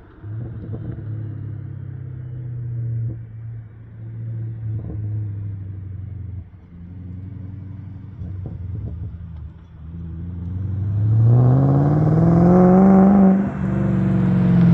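BMW 540i Touring's 4.4-litre V8, breathing through test pipes in place of the secondary cats, an X-pipe and glass-pack mufflers, running at a distance at first. From about ten seconds in it accelerates hard toward the microphone, its exhaust note rising in pitch and growing much louder, with a brief dip in level near the end.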